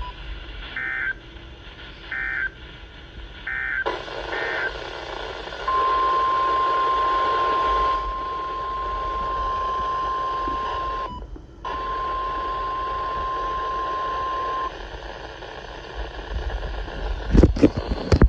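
NOAA Weather Radio test signals through a receiver with steady static hiss: four short warbling SAME data bursts, then the steady single-pitch warning alarm tone held for about nine seconds, cutting out briefly partway through. A burst of loud static crackle near the end.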